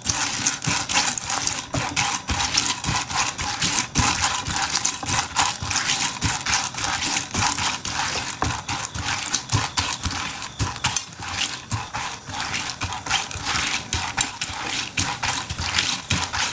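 Popcorn kernels being stirred with a silicone spatula in hot oil in a nonstick pan: a steady, dense run of small clicks and crackles. The kernels are heating but not yet popping.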